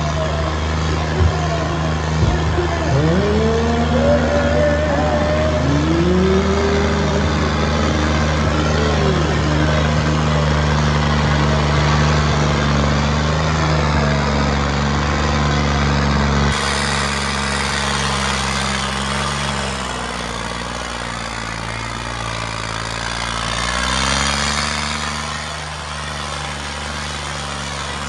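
Diesel tractor engines running steadily under power. A few seconds in, rising pitch glides cut across the sound. Near the end the revs drop and then climb again.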